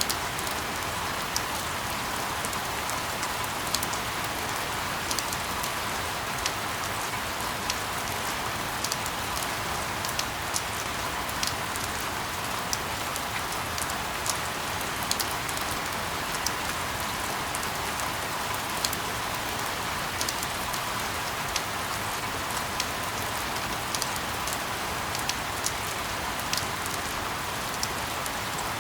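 Steady rain: an even hiss with scattered sharp drop ticks throughout.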